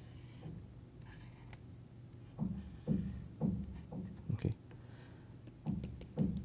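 Soft taps and clicks of a stylus on a tablet as a drawing is sketched, about half a dozen scattered through, over a low steady electrical hum.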